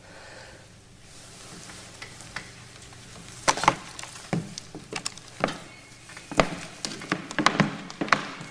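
Soft hiss, then from about three and a half seconds in a run of irregular sharp clicks and knocks, about one or two a second.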